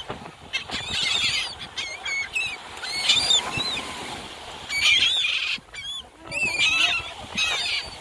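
A flock of laughing gulls calling over and over in short, high, bending squawks, several birds overlapping, loudest about three and five seconds in.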